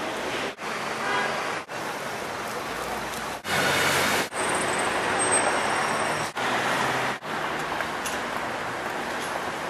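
Steady city street traffic noise, louder about three and a half seconds in as a large vehicle passes close by. The sound is cut by several brief silent gaps.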